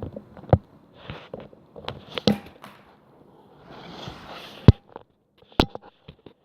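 A few sharp clacks and knocks, a second or two apart, the loudest about five seconds in, with a brief rustling hiss just before it.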